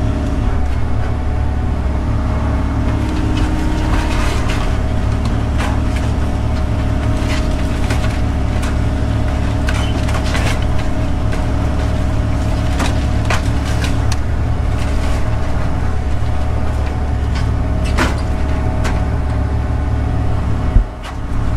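Excavator's diesel engine running steadily under load as it works the demolition pile, with scattered sharp cracks and crunches of breaking wood debris. A single sharp thump stands out a little before the end.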